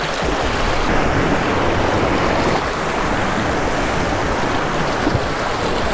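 Sea surf washing and breaking over a rocky shoreline in a steady rush of noise.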